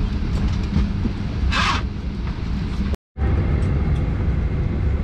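Steady low rumble of a Boeing 737-800 cabin's air system with the aircraft on the ground. A short hiss comes about one and a half seconds in, and the sound cuts out for an instant about three seconds in before the same rumble resumes.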